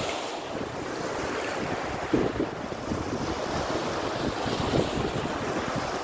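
Small sea waves washing in and out over the shallows, with wind buffeting the microphone. A wave surges a little louder about two seconds in.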